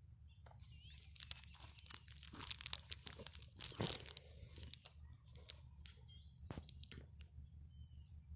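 Close, irregular crackling and rustling from the phone being handled and moved about. Under it runs a low steady hum, and birds chirp faintly near the end.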